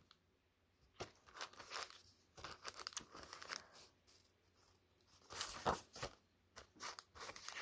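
Sheets of craft paper and cardstock rustling and sliding against one another as they are leafed through by hand, in short irregular scrapes.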